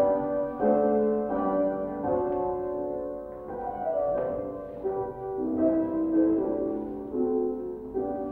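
Instrumental dance music, chords held and changing every second or so, in a steady dance rhythm.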